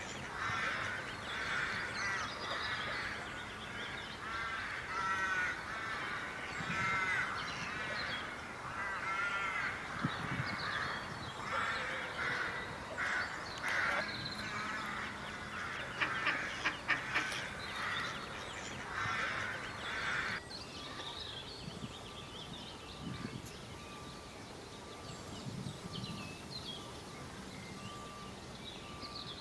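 A flock of ducks quacking and calling over one another in quick, repeated calls. About twenty seconds in the sound changes abruptly to quieter, scattered high chirps over a faint steady tone.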